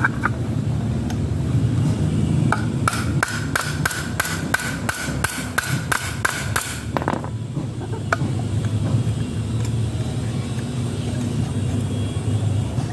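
A steady low rumble, with a run of about a dozen evenly spaced sharp knocks, roughly three a second, starting about two and a half seconds in and stopping near the middle.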